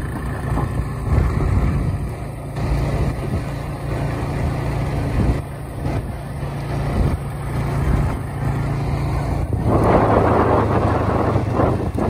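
Motorcycle engine running steadily while riding over an unpaved dirt road bed, with wind rushing over the microphone and tyre noise. The rush grows louder about two seconds before the end.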